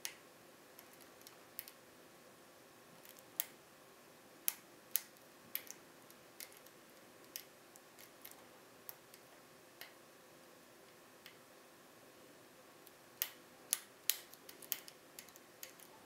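Small sharp metallic clicks of a hook pick and tension wrench working the pin tumblers of a BKS PZ 88 euro cylinder, coming irregularly, with a quick run of clicks near the end.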